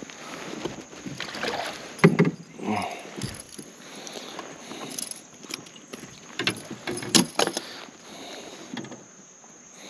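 Irregular knocks, clicks and rattles of fishing gear being handled in a plastic fishing kayak, with a sharper knock about two seconds in and a cluster of clicks around seven seconds.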